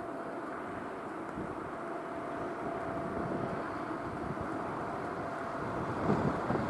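ChS4 AC electric locomotive hauling a passenger train on approach, a steady droning whine that grows slowly louder. A few low knocks come near the end.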